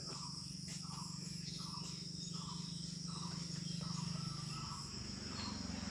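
Crickets trilling steadily in the background over a low steady hum that fades about four and a half seconds in, with faint short sounds repeating under them.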